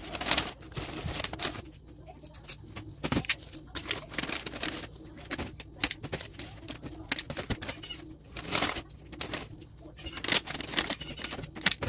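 Kraft paper delivery bags rustling and crinkling as they are opened and handled and sweets are packed into them, in irregular crackles with a few sharper rustles.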